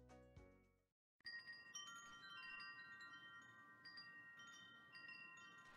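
The last notes of background music fade out within the first second. After a short gap, faint wind chimes tinkle, with many ringing metal tones struck at irregular moments and overlapping as they ring on.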